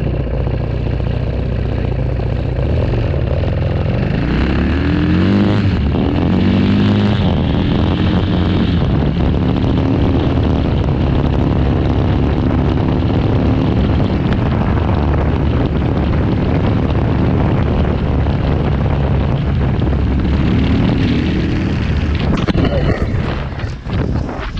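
KTM 500 single-cylinder four-stroke dirt bike engine running under way, with wind rushing over the microphone. The revs climb several times, rising in pitch as it accelerates through the gears about four to seven seconds in. Near the end the sound dips and is broken by a few knocks.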